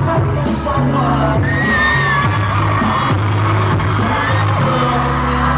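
Live K-pop concert sound heard from within the crowd: a loud pop track through the PA with a deep bass line and steady beat, a member singing over it about a second and a half in, and fans cheering and whooping.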